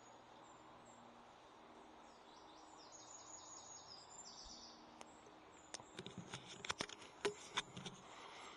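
Quiet woodland with a small bird giving short series of high chirps about three seconds in, then a quick run of sharp clicks and ticks near the end.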